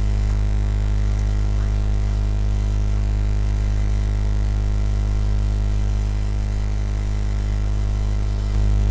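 Steady electrical mains hum with a ladder of even overtones, heavy in the bass, with a few faint keyboard clicks.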